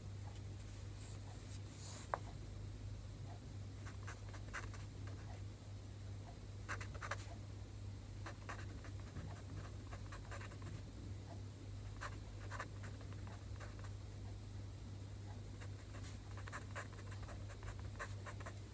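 A pen scratching on paper as Chinese characters are handwritten: short, irregular strokes of faint scratching, over a low steady hum.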